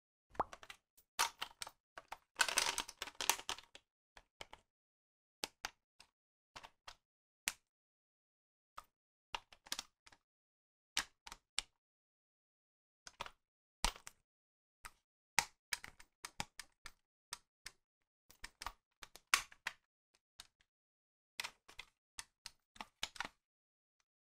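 Hard plastic clicking and tapping as a DX Desire Driver toy belt's plastic strap and buckle are handled: scattered sharp clicks, with a short burst of clatter about two to three and a half seconds in.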